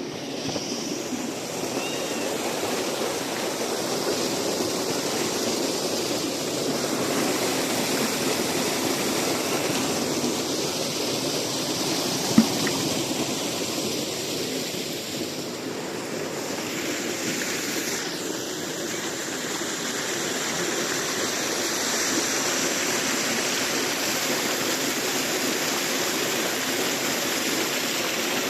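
Steady rush of running water, with a single sharp click about twelve seconds in.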